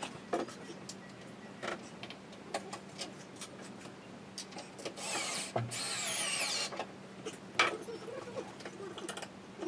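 Cordless screwdriver running for about a second and a half near the middle, its pitch sliding as it drives screws into chipboard cabinet panels. Scattered sharp clicks and knocks from the panels being handled come before and after it.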